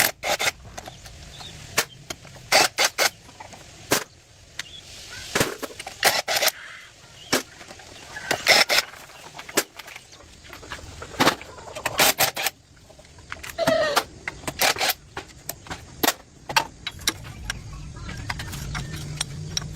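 Irregular sharp clicks and knocks from work on metal parts, more than a dozen, some in quick pairs. A low engine hum comes back over the last few seconds.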